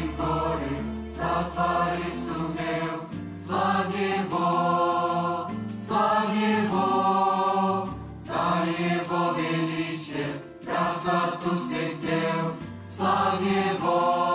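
Mixed youth choir of men's and women's voices singing a Russian worship song in phrases, over an accompaniment of low held bass notes.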